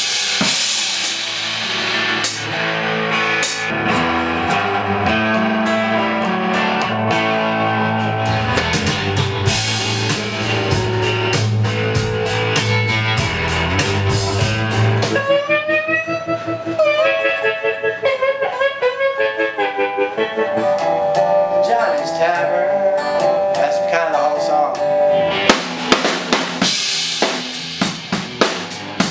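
Rock band music: drum kit, bass and guitars playing together. About halfway the deep bass drops out and a lead line with bending pitch carries on over the drums, and near the end mostly drum hits remain.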